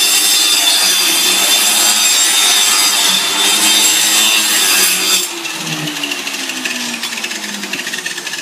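Electric undercut (jamb) saw running, its spinning blade cutting through the bottom of a wooden door jamb with a loud, steady high whine. About five seconds in the sound drops in level and its pitch falls.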